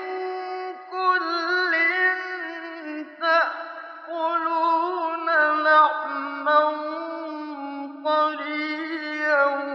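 A male Quran reciter chanting in the melodic mujawwad style: several long, ornamented phrases with sliding turns and vibrato, from an old radio recording.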